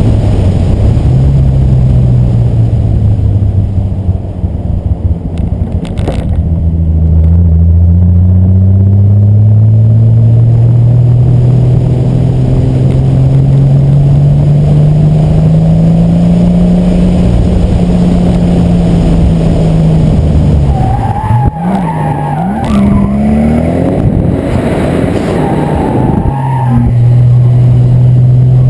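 Car engine pulling hard, its pitch climbing slowly for several seconds. About three quarters of the way through, tyres squeal for a few seconds as the car slides in a drift and the revs waver. The engine then settles at steady revs.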